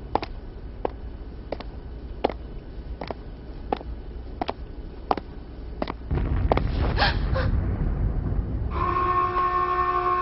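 Sharp ticks about every 0.7 seconds, then a low rumble rises about six seconds in. Near the end a loud, steady horn-like alarm starts: several held tones sounding together, as the building's alarm goes off during the attack.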